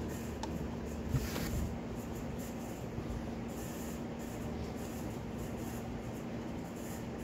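Steady low electrical hum under a background hiss. There is a faint click about half a second in and a brief soft rustle just after a second.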